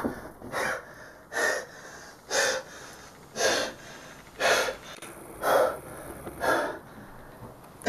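A person gasping for breath, seven heavy, even breaths about one a second, as they sit up from bed just woken.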